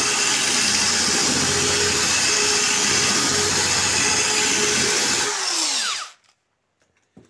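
Corded drill-driver spinning a diamond-coated core bit at high speed, grinding a large hole through glass. About five seconds in, the trigger is released and the motor winds down with a falling whine, leaving only a faint click.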